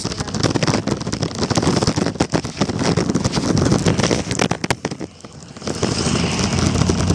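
Scooter wheels rolling over a rough, gravelly dirt road: a dense, loud rattle of clicks and knocks from the wheels and deck over the stones. It eases off briefly about five seconds in, then picks up again.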